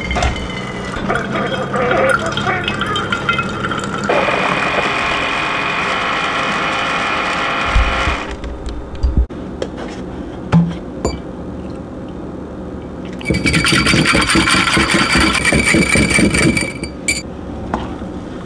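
Single-serve coffee maker brewing into a metal tumbler: a steady hiss that stops about eight seconds in. Later come a few clinks and a few seconds of liquid being poured.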